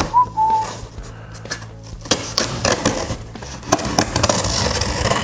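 Small knife slitting packing tape along the seam of a cardboard box: irregular scraping and ticking of the blade through tape and cardboard, busiest in the last couple of seconds.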